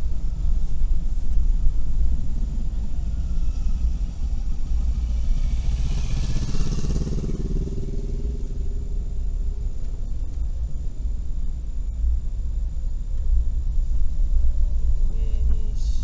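Steady low drone of a Suzuki Every kei van's small three-cylinder engine and tyres, heard inside the cabin while it drives downhill. About six seconds in, a motorcycle passes close by, its engine note swelling and then fading away.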